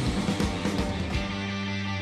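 Rock and roll band recording with electric guitar, bass and drums. The drums hit steadily through the first second, then a chord is held and left ringing from a little over a second in.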